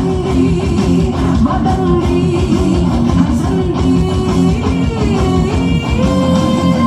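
Loud recorded music with a steady beat, held tones and a moving melody line.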